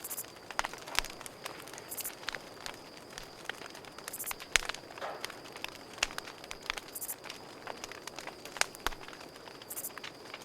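Campfire crackling, with irregular sharp pops and snaps, over a steady high-pitched trill of crickets. Short bursts of very high insect buzzing come every two to three seconds.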